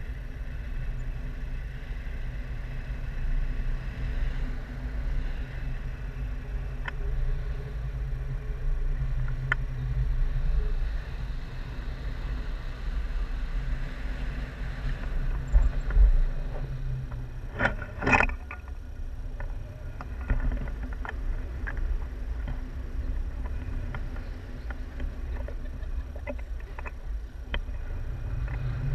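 Airflow buffeting the microphone of a pole-held action camera in paraglider flight: a steady low wind rumble. A little past the middle comes a brief cluster of sharp clicks and a rattle, with a few faint ticks after it.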